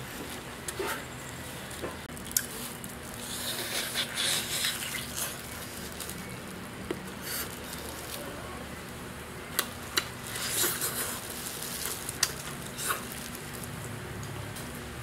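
A man eating from a cooked crocodile tail with loud mouth noises: wet slurps, sucking and lip-smacks, with scattered sharp clicks. They come in clusters, loudest a few seconds in and again about two-thirds of the way through.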